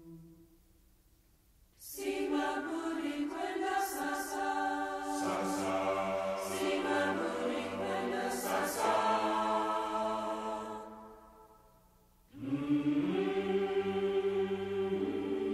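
A chorus of Zulu voices chanting in harmony. After a short pause it comes in about two seconds in, fades away around eleven seconds, and a new phrase starts near the end.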